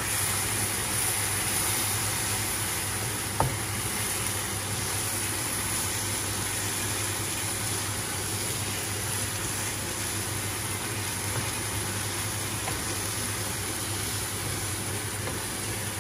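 Lamb mince filling with frozen peas sizzling steadily in a frying pan as its liquid cooks off, over a low steady hum. A single sharp tap comes about three and a half seconds in.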